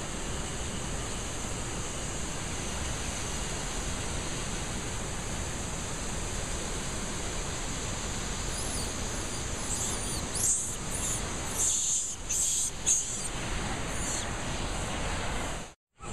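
Steady rushing of a river running alongside the path. Between about halfway and three-quarters of the way through, a cluster of sharp, high-pitched squeals and chirps stands out as the loudest sound, and the audio cuts out abruptly for an instant just before the end.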